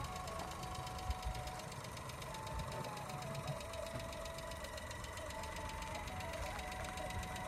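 Small Maruti car's three-cylinder engine running steadily at low revs, its pitch stepping up and down a little, with a few low thumps.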